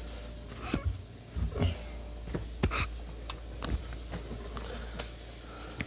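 Phone-handling and movement noise: a string of irregular knocks and clicks, the loudest about a second and a half and two and a half seconds in, over a steady low hum.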